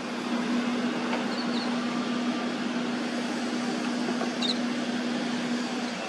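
Steady mechanical hum with one constant low tone running under an even noise. Two brief faint high chirps come about a second and a half in and again after four seconds.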